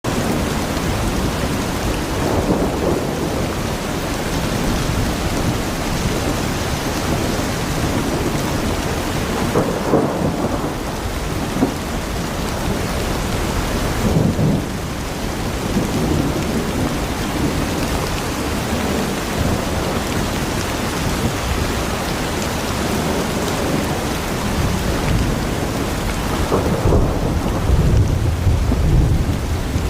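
Heavy monsoon rain falling in a steady hiss, with thunder rolling in several times: short rumbles early and midway, and a louder, deeper rumble near the end.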